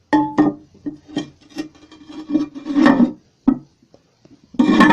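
Porcelain toilet tank lid being set back onto the tank and worked into place: a series of clunks and scrapes of ceramic on ceramic, several with a short ringing tone.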